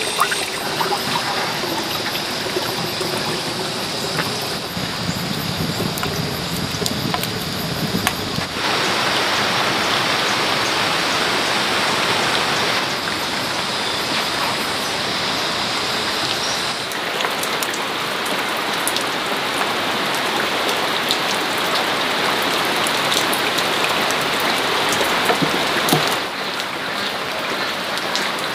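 Steady rushing noise of water, changing abruptly in tone and level three times.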